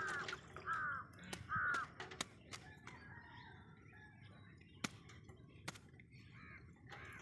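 A bird calling: three short harsh calls in quick succession at the start, then fainter calls near the end, with scattered faint clicks in between.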